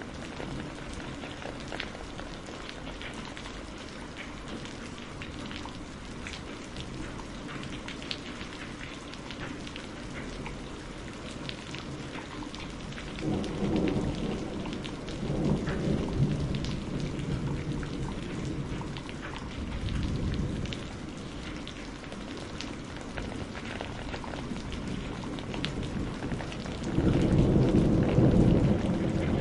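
Steady rain with a fine patter of drops, and rolling thunder rumbling in from about halfway through, growing loudest near the end.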